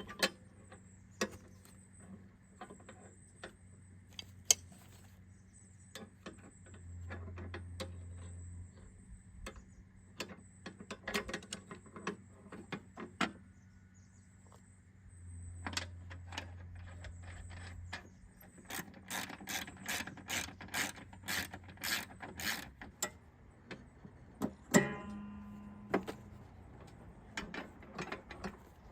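Hand tools at work fitting a new bracket: scattered metal clicks and knocks. Past the middle comes a run of evenly spaced ratcheting clicks, about two a second, lasting a few seconds.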